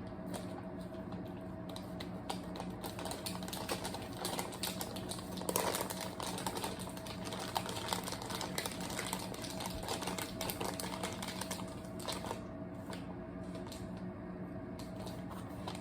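Rapid, irregular crinkling and clicking of MRE plastic pouches and the ration-heater sleeve being handled, over a faint steady hum.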